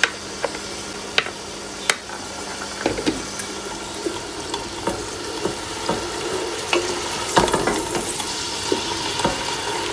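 Ginger-garlic paste frying with browned onions in oil in a stainless steel pot: a steady sizzle, with a few sharp taps of a wooden spoon in the first two seconds as the paste is scraped in, then the spoon stirring and scraping through the pot, busier in the last few seconds.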